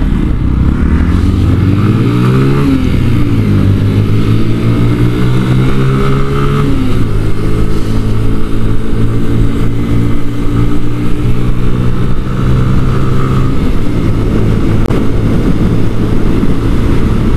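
A 125cc motorcycle engine heard from on board, rising in pitch through the first few seconds as the bike accelerates through two gears, then holding a steady note at cruising speed under a constant rush of road and wind noise.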